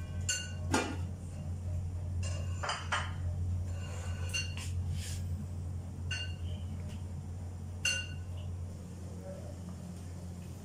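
An aluminium lid set down on an aluminium cooking pot, covering it to cook on dum, followed by a series of light metal clinks and taps of kitchenware over the first eight seconds. A steady low hum runs underneath.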